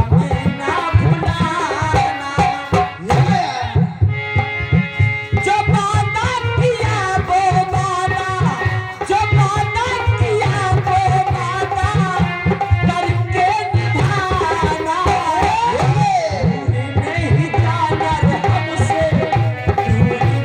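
Folk devotional music: a hand drum beating a fast, steady rhythm under a wavering melody line and held harmonium-like chords, with some singing.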